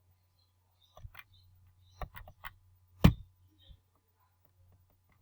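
Scattered clicks and knocks of handling noise, the loudest a single thump about three seconds in.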